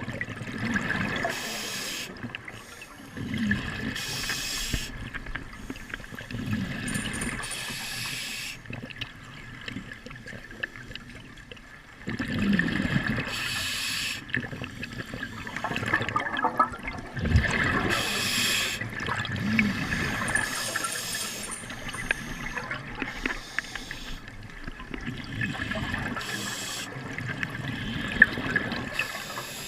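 Water rushing and splashing in uneven surges every second or two, over a steady high tone.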